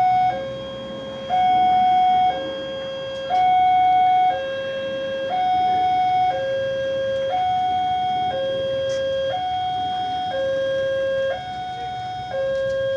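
Railway level-crossing warning alarm sounding its electronic two-tone signal, a high and a low note alternating, each held about a second, warning that a train is approaching.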